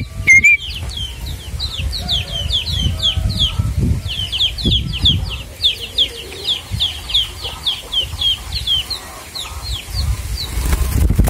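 A steady run of high, thin peeps from a young bird, several each second, each note falling in pitch, over a low rumble. A brief thump near the end.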